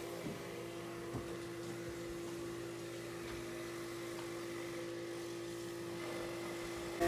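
A machine running steadily, giving a constant mechanical hum with one strong, even tone.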